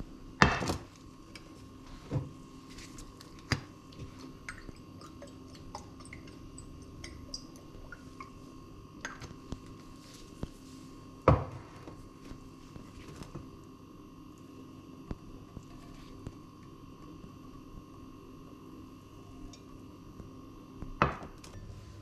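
Steady electrical hum under kitchen handling sounds. A non-stick frying pan clunks down on a glass-topped hob about half a second in. Scattered knocks and clicks follow, with loud ones about eleven seconds in and near the end.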